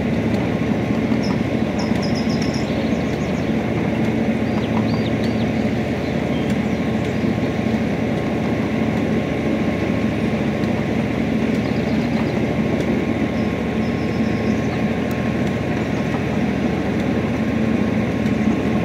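Small ride-on garden train running steadily along its track, heard from aboard: a continuous rumble of the cars on the rails with a steady low hum underneath.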